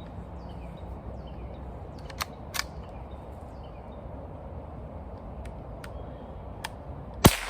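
A few sharp, isolated clicks over a steady low background hiss, with one louder click near the end.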